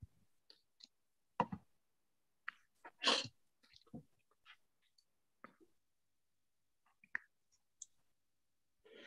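Scattered brief clicks and knocks picked up over a video-call microphone, with one louder, longer noisy burst about three seconds in and dead silence between the sounds.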